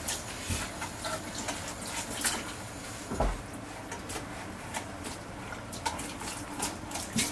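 Kitchen tap water running into a sink while an aluminium mess tin is washed with a sponge, with scattered light clinks and a soft knock about three seconds in.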